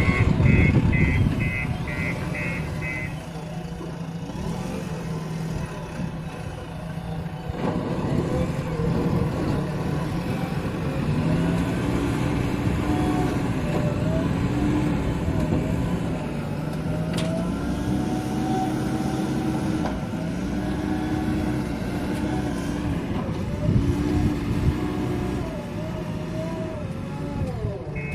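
JCB 3DX backhoe loader's diesel engine working, its pitch rising and falling as the hydraulics are loaded while digging and loading. A quick run of short high-pitched beeps repeats over the first few seconds and comes back near the end.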